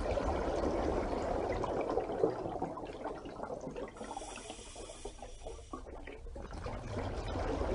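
A steady rush of water, dipping a little in the middle and swelling again near the end.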